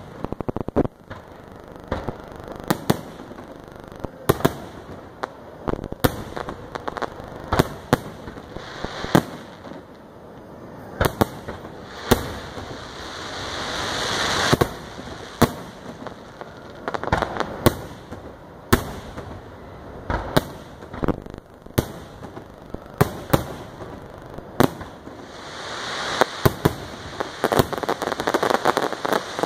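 Aerial firework shells bursting: a string of sharp bangs, sometimes several in quick succession, over a crackling hiss that swells twice, around the middle and again near the end.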